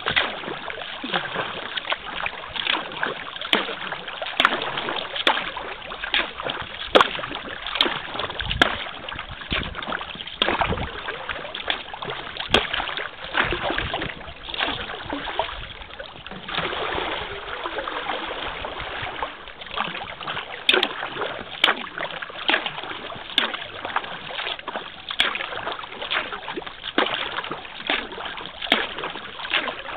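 Kayak paddle dipping into calm river water stroke after stroke, with splashes and drips running off the blades.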